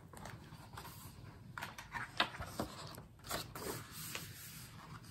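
Faint, scattered rustles and light clicks as a hardcover picture book is handled and its page turned.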